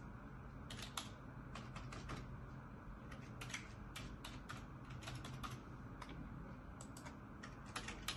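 Computer keyboard being typed on: faint, irregular keystrokes with short pauses between runs of keys.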